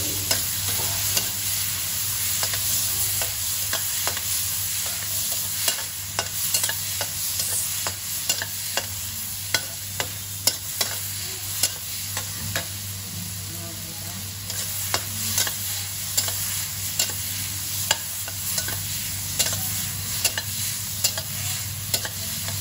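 Chopped tomatoes, onions and garlic sizzling in hot oil in a stainless steel wok, with a spatula scraping and clacking against the pan in sharp, irregular clicks as they are stirred.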